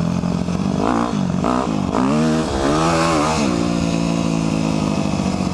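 Dirt bike engine heard from the rider's seat while riding on a dirt road. Over the first few seconds its pitch rises and falls several times as the throttle is worked, then it holds a steady note.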